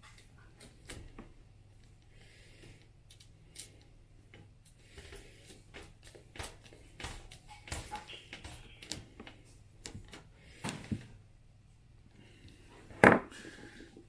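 Scattered small clicks, scrapes and rattles of a hand screwdriver turning screws through a floor fan's wire guard into its plastic centre plate, the wire mesh rattling as it is handled. About a second before the end comes one much louder knock as the screwdriver is put down on the table.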